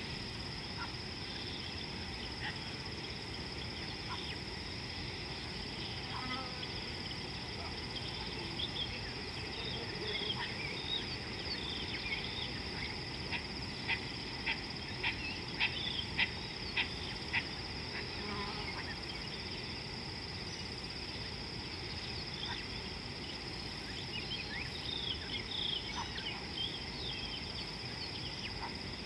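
Bush ambience: a steady high-pitched insect drone with scattered bird chirps, and about halfway through a run of about seven short, sharp calls, roughly two a second.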